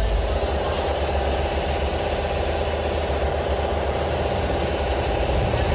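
A motor running steadily with a constant drone.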